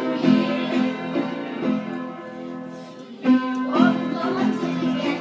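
A group of children singing together with instrumental accompaniment. The sound thins out about two to three seconds in, then comes back strongly a little after three seconds.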